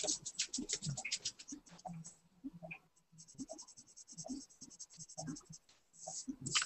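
Pencil scratching on paper in runs of quick, short drawing strokes with brief pauses between them.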